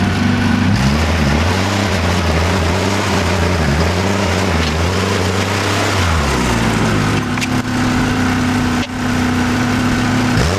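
Tractor engine running, its speed shifting up and down a few times as it works.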